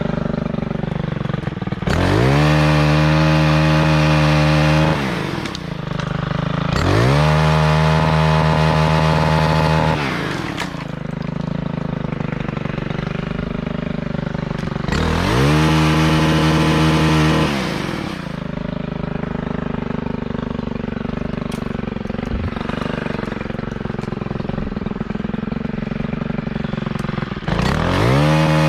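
Two-stroke chainsaw idling, then revving up to a high, steady pitch for about three seconds and dropping back to idle, four times over, as it is throttled up for cuts on tree limbs.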